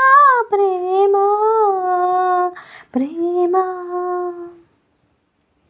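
A woman's solo voice sings the word "prema" in long held notes, heard through a phone's speaker. There is a breath about two and a half seconds in, and the last note stops about four and a half seconds in.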